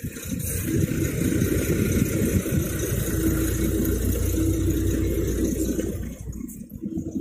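Car engine running steadily with a low hum, easing off about six seconds in.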